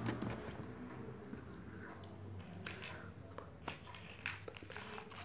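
Scattered faint clicks and rustles from hands and clothing moving close to a phone's microphone during signing, over a low steady hum.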